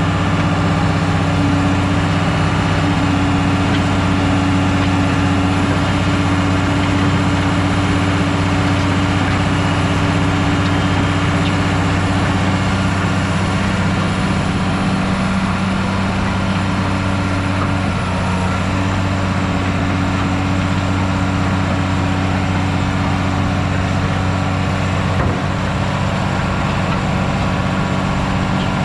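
Diesel engine of a 1997 ABG Titan 273 asphalt paver running steadily with an even hum.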